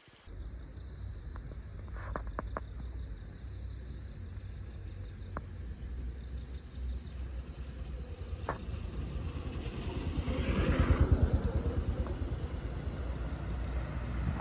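A motor vehicle running with a steady low rumble, swelling louder about ten to eleven seconds in, with a few faint clicks.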